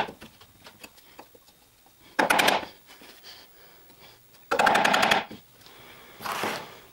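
Chisel paring dense wenge to square off the corners of a mortise: three short scraping strokes about two seconds apart, each a rapid chatter of the blade against the hard wood.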